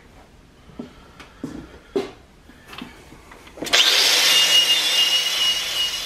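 A few light knocks and clicks, then about four seconds in an angle grinder starts grinding the rust off a steel lid down to bare metal: a loud, steady grinding noise with a high whine on top.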